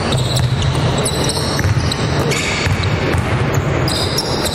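Several basketballs bouncing on a hardwood court in a repeated patter, with sneakers squeaking a few times on the floor, echoing in a large sports hall.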